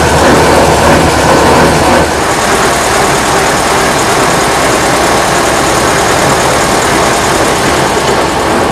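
Diesel engine of a Deutz OMZ 117 narrow-gauge locomotive running as it hauls skip wagons along the track, heard from the cab. The steady engine note is plain at first; about two seconds in the sound drops a little and turns more to an even running noise.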